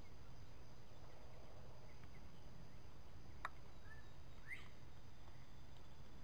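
Quiet woodland background with a steady low rumble, broken by a single sharp click about three and a half seconds in and a couple of short bird chirps just after it.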